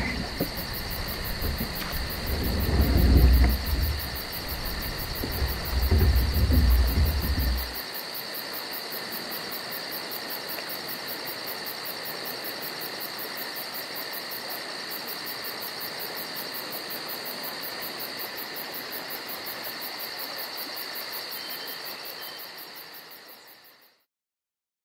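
Steady chorus of insects such as crickets or cicadas: a continuous high-pitched buzz with a fast, even pulse. A heavy low rumble runs under it for the first several seconds, then stops. The chorus fades out near the end.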